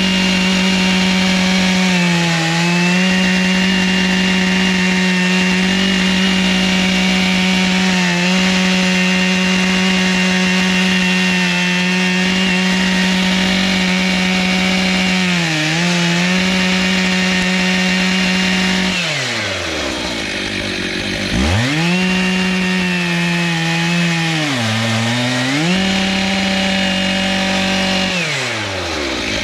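Chainsaw on an Alaskan mill ripping a butternut log lengthwise, held at full throttle, its engine pitch dipping briefly under load a few times. About two-thirds of the way in the throttle is let off twice, the engine falling toward idle and then revving back up.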